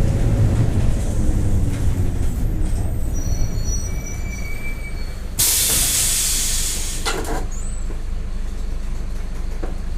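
Mercedes-Benz OF-1721 diesel city bus heard from on board, its engine and drivetrain rumbling and easing off as it slows. Brakes squeal thinly about three to four seconds in, then a loud hiss of compressed air is let out a little past halfway, followed by a shorter puff of air as the engine idles.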